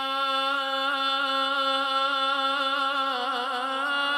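A male Quran reciter holds one long melismatic note in maqam Kurd, drawing out a vowel. The pitch is steady at first, then wavers into ornamented vibrato about three seconds in.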